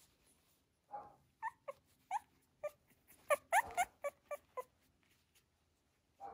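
Miniature Schnauzer puppy whimpering: a soft huff, then a quick run of about a dozen short, high-pitched squeaks over some three seconds, loudest in the middle.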